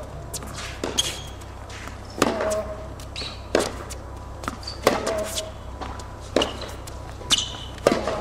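Tennis rally on a hard court: a ball struck back and forth, with sharp pops of racket hits and ball bounces about every second. The loudest are the near player's shots, about every three seconds, some with a short ring from the racket.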